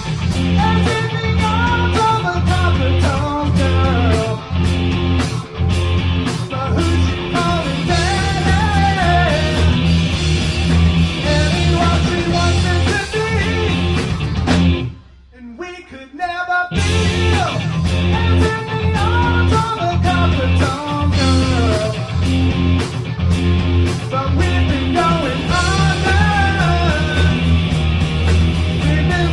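Rock band playing live, with guitar, a steady heavy bass line and singing over them. The band stops dead for about a second and a half about halfway through, then comes back in.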